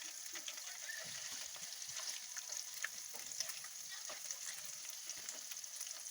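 Vegetables frying in hot oil in a pan: a steady sizzle with many small crackles and pops.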